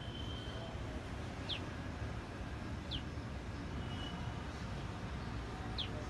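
A small bird chirping: three short, sharp notes that drop in pitch, spaced a second or more apart, with a thin held whistle twice between them, over a steady low background rumble.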